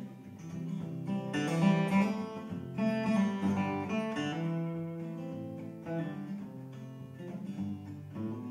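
Solo steel-string acoustic guitar playing an instrumental passage between verses, chords picked and strummed with no voice. The playing is fullest in the first few seconds and softer after that.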